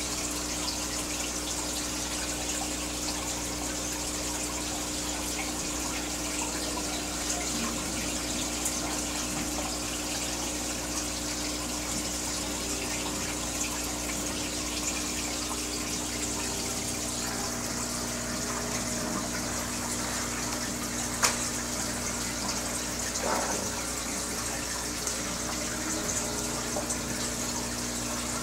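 Aquarium filter and air bubbles: steady running, bubbling water over a low steady hum. One sharp click about three quarters of the way through.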